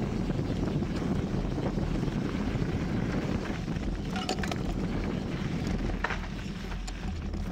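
Wind buffeting the microphone of a handlebar-mounted 360 camera, with the mountain bike's tyres rolling over a dirt trail during a descent. A few sharp clicks about four and six seconds in.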